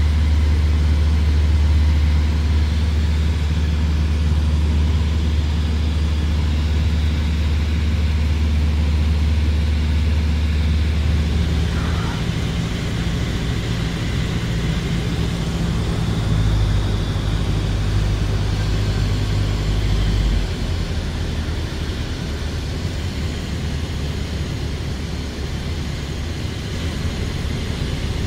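Single-engine light aircraft's piston engine and propeller droning steadily inside the cockpit. The drone shifts in pitch a little under halfway through and twice more later, and is a little quieter in the last third.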